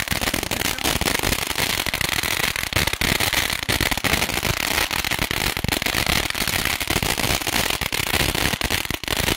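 Ground fountain firework spraying sparks with a steady, dense hiss full of crackling.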